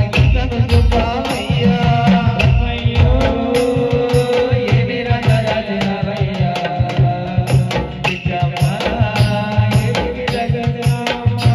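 A man singing a Telugu devotional folk song into a microphone, accompanied by a steady, fast hand-drum beat.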